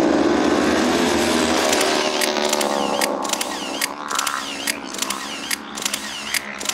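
Engine noise that fades away over the first two seconds. It is followed by a run of sharp ratcheting clicks, two to three a second, each with a short swooping ring.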